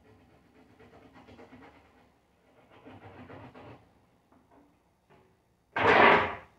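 A steak knife sawing through a rack of raw ribs on a cutting board: faint scraping strokes in two spells during the first four seconds. Near the end comes a sudden loud puff of breathy noise, just under a second long.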